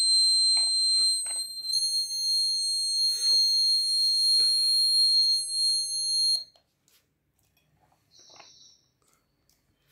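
Alarm buzzer on a railway crack-detection robot kit sounding one continuous high-pitched beep, a second, fainter set of tones joining about two seconds in, then cutting off suddenly about six seconds in. The buzzer is the kit's crack-detection alarm, triggered when its IR sensor finds a gap in the track.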